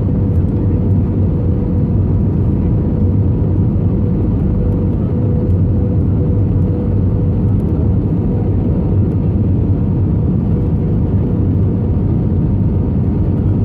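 Steady jet airliner cabin noise on the landing approach: a low rumble of engines and airflow, with a thin steady hum riding over it.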